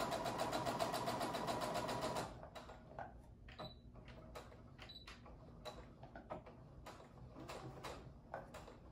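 Brother electric sewing machine running a straight stitch, a rapid, even ticking over a steady motor hum, which stops abruptly a little over two seconds in. After that only faint, scattered clicks are heard.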